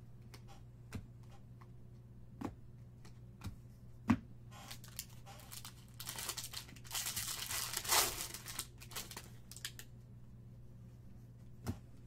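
Light taps and clicks of trading cards being handled, then, about six seconds in, a foil baseball-card pack wrapper crinkling and tearing for about three seconds.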